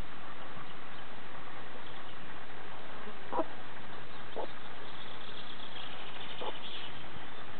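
Mother hen giving three short, low clucks to her chicks, spread over a few seconds, with faint high chick peeping near the end and a steady background hiss.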